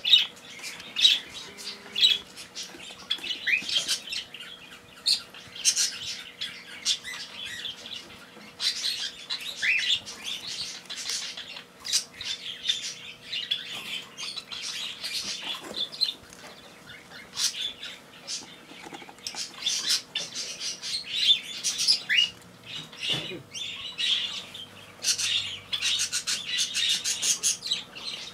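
Pet parakeets and cockatiels chirping and squawking in a steady stream of short, high calls, with a few rising whistled notes.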